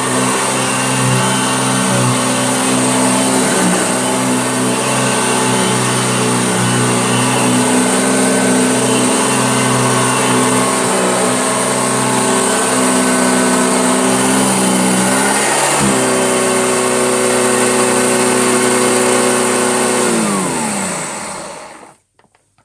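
1969 Hoover Junior upright vacuum cleaner running with a steady motor hum. A brief click comes about two-thirds of the way in. Near the end the motor winds down, falling in pitch, to a stop.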